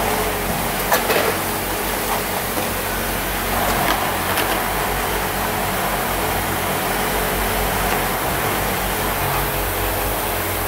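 Automatic deodorant-stick assembly machine running: a steady hum from its vibratory bowl feeders and drives, with a few sharp clicks from its pneumatic stations and parts about one second and about four seconds in.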